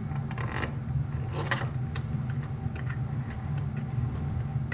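Clinks and rattles of small metal parts being handled, in a burst about half a second in and another around a second and a half, then a few light ticks, over a steady low hum.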